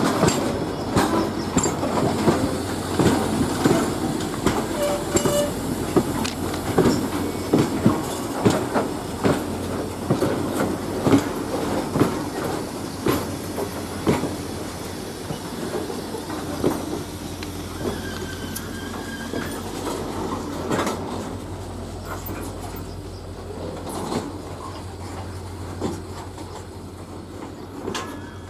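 Freight wagons of a coal train rolling past on the rails, wheels clicking over the rail joints in an irregular clatter that slowly grows quieter, with a brief faint wheel squeal about two-thirds of the way through.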